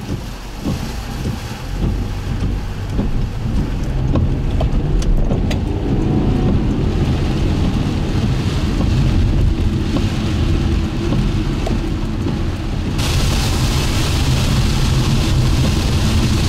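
Inside a vehicle driving through a heavy rainstorm: a steady rumble of road and engine noise with rain and wind, building over the first few seconds as it picks up speed. About thirteen seconds in, a sudden rise in hiss.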